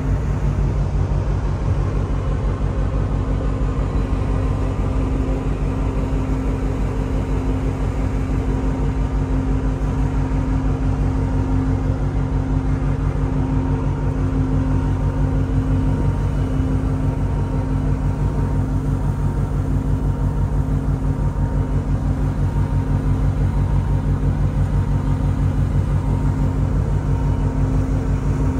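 Steady machinery drone from a large container ship underway: an even, unchanging hum over a fast low throb.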